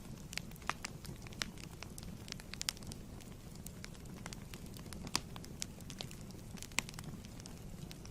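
Wood fire burning in a fireplace: a steady low rumble under irregular crackles, with a few sharper louder pops.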